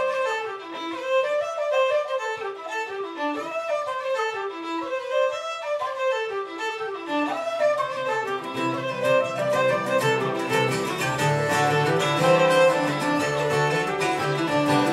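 A set of Irish traditional jigs played live on uilleann pipes, fiddle, bouzouki and guitar. For the first half a quick melody runs up and down over little underneath it, and from about halfway the sound fills out with sustained low notes beneath the tune.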